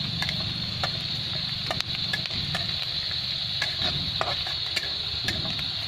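Vegetables and spices sizzling in oil in a steel kadhai, while a steel spatula stirs and clicks against the pan about twice a second. A low steady rumble runs underneath.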